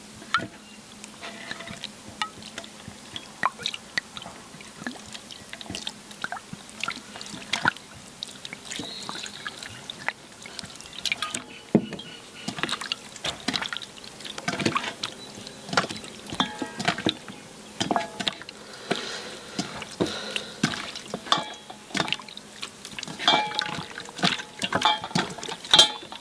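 Kitchen sounds of cooking: irregular clinks and knocks of utensils on pots or dishes, some ringing briefly, with liquid dripping and pouring. They grow busier and louder from about halfway in.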